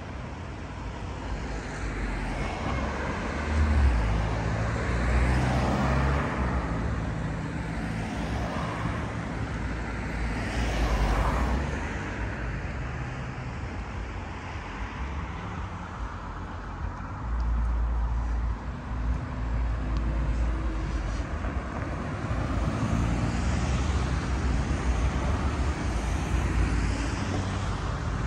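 Street traffic: cars pass one after another, their engine and tyre noise swelling and fading over a steady low rumble.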